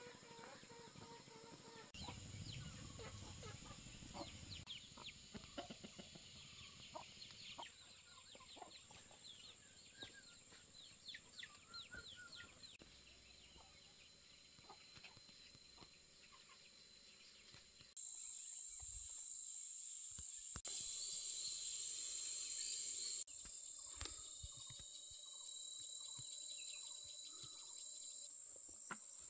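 Faint farmyard ambience: chickens clucking over a steady high-pitched insect drone. The background jumps abruptly in level several times.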